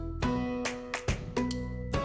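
Background music: plucked guitar notes over a steady beat.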